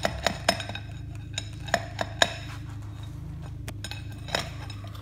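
Steel bar and chain clinking against the steel anchor pot in the floor as the bar is worked to center the pot's wedge. The sharp metallic clinks come in clusters near the start and around two seconds in, with one more near the end, over a steady low hum.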